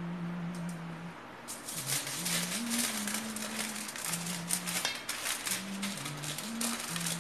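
Aluminium foil crinkling and crackling as it is folded and rolled tightly around a meat log, starting about a second and a half in. A soft tune of low held notes plays underneath.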